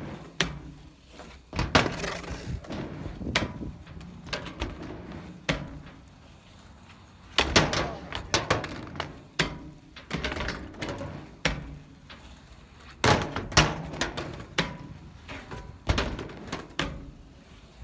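Skateboard runs at a flat-bar boardslide: wheels rolling on the ramp, punctuated by sharp clacks of the board hitting the ramp and rail. A board clatters away on its own in a bail. There are about three such runs, with quieter gaps between them.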